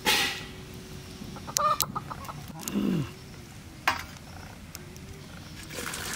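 Chickens clucking a few times, with one call falling in pitch. A short, loud scratchy burst comes right at the start, and a sharp click about four seconds in.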